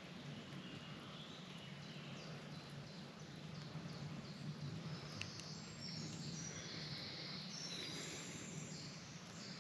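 Small birds chirping in woodland, with short high calls that come most thickly in the middle, over a steady low background rush.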